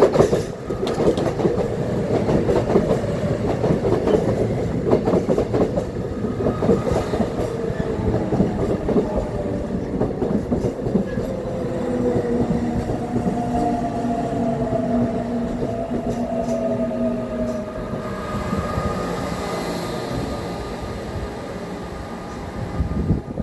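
Seoul Metro Line 4 VVVF electric train pulling into a station, its cars rolling past with wheels clattering over the rail joints. From about halfway, the inverter-driven traction motors whine, the tones slowly falling in pitch as the train brakes.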